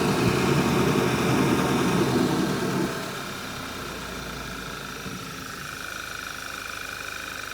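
Audi 2.0 TFSI turbocharged four-cylinder engine running at cold idle with a loud rushing, vacuum-cleaner-like air-flow noise and a steady whine; the rush drops away sharply about three seconds in, leaving the quieter idle and whine.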